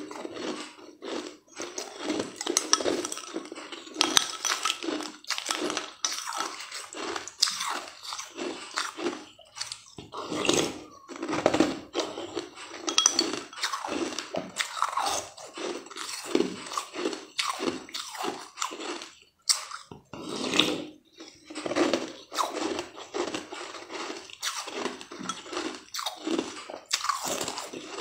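Close-up crunching and chewing of hard frozen ice balls in the mouth: a dense run of sharp crunches with a few brief pauses.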